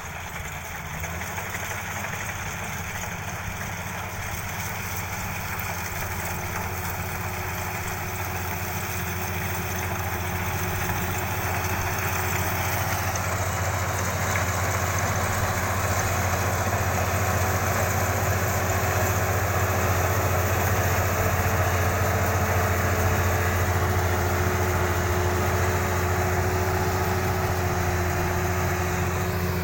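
Kubota DC-35 combine harvester's diesel engine running steadily, growing louder over the first half, with a steady mid-pitched whine joining in about six seconds in.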